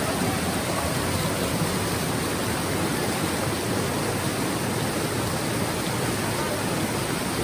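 Swollen river rushing over rocks: a steady, unbroken rush of white water.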